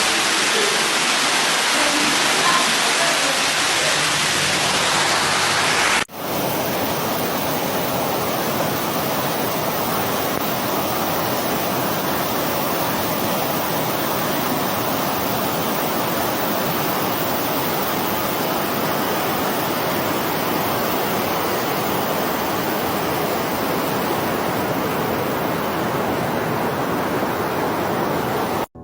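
Rushing floodwater: a steady, loud hiss of fast-flowing water. About six seconds in the sound cuts abruptly to another stretch of rushing water, a little quieter and duller.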